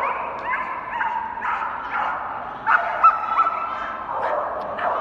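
Small dog barking repeatedly in high yapping barks, about two a second, while running an agility course.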